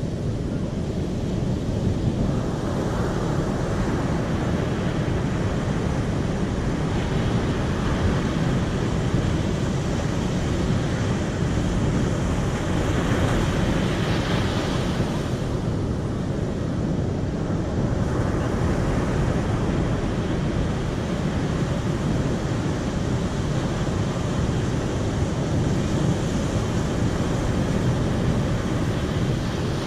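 Water rushing steadily, with slow swells every few seconds.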